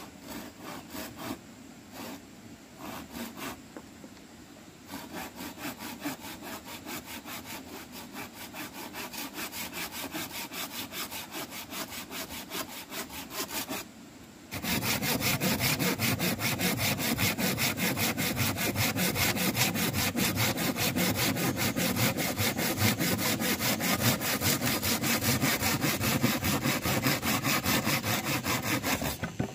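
Hand saw cutting wood in back-and-forth strokes. A few halting strokes at first, then a steady quieter rhythm. After a short pause about halfway, the strokes come louder and continue until they stop just before the end.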